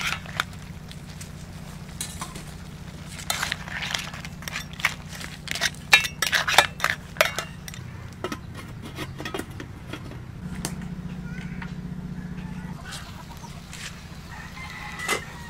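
Metal utensil clinking and knocking against an aluminium wok as mud crabs are stirred, with scattered sharp clacks, then a metal lid set down on the wok.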